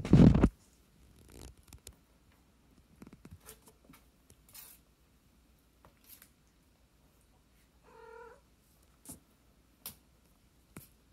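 Foster kittens play-fighting: a loud, low, rough purr-like rumble close to the microphone that stops within the first half-second, then faint taps and scuffs of paws. One short kitten mew comes about eight seconds in, followed by a few sharp clicks.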